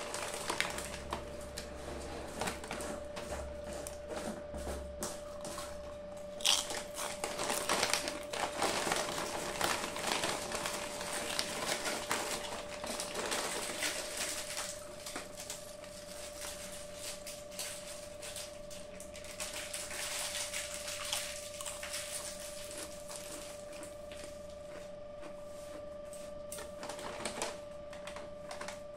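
Foil-lined potato chip packet crinkling and rustling in irregular bursts as hands handle it and pick through the chips.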